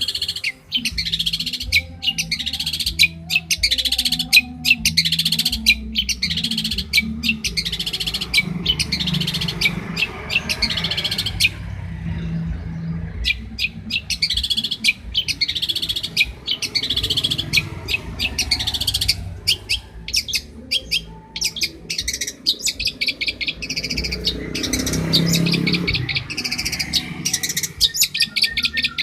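Long-tailed shrike (cendet) singing a fast, continuous run of short chirping notes, with a couple of brief pauses.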